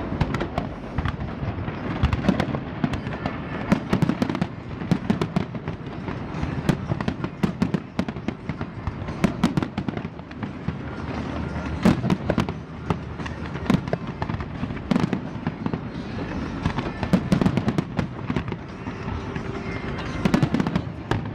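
Fireworks going off: many irregular sharp bangs and crackles over a continuous low rumble.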